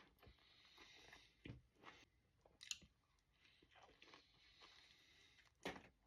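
Faint, close chewing of a mouthful of crispy chicken burrito, with a few sharper crunches, the loudest near the end.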